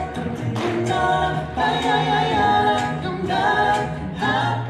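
Background music: several voices singing together in harmony, a cappella style, punctuated by sharp percussive hits.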